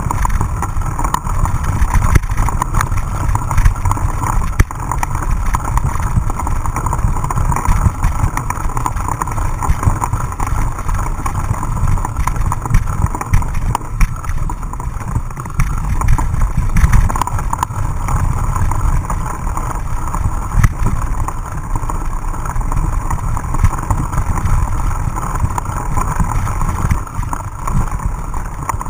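Mountain bike riding over a rough dirt trail, heard through an action camera's microphone: a steady rumble of wind and vibration with frequent small clicks and rattles.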